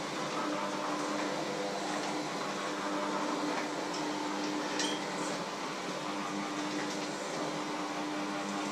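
Electric hand mixer running steadily, its beaters whirring in a metal bowl with an even, constant-pitched hum. A single sharp click comes about five seconds in.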